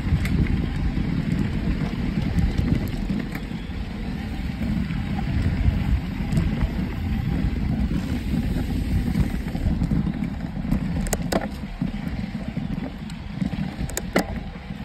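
Riding a mountain bike over a dry, dusty dirt trail: a steady low rumble of tyres on dirt and wind on the microphone, with a few sharp clicks and rattles later on.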